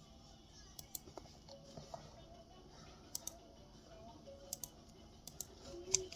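Faint, crisp clicks of eating a crunchy Dubai chewy cookie, mostly in quick pairs every second or so, over quiet background music.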